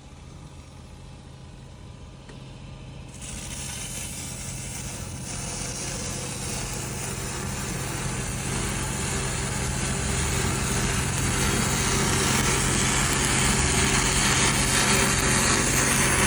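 Stick-welding arc hissing and crackling as an electrode burns along a 3-inch pipe weld. It starts about three seconds in and grows louder, over a steady low hum.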